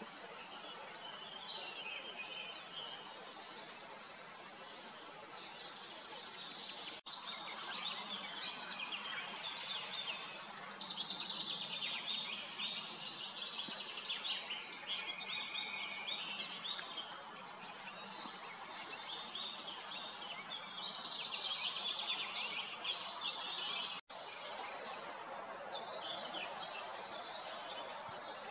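Several wild songbirds singing and calling in a dense, overlapping chorus over a steady background hiss. The sound breaks off for an instant twice.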